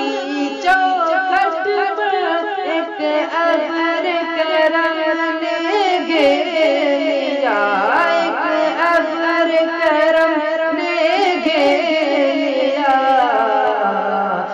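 A boy's voice singing an Islamic devotional kalaam a cappella, holding long, wavering, ornamented notes that bend up and down in pitch.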